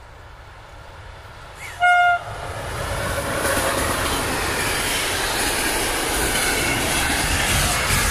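EU07 electric locomotive sounds one short horn blast about two seconds in, then comes past close by hauling a container train, with the steady loud noise of wheels and wagons on the rails.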